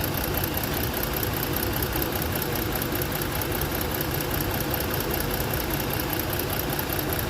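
Ford Explorer engine idling steadily. It has a misfire: one ignition coil gets no spark, which the mechanic blames on the igniter module or the computer rather than the coil.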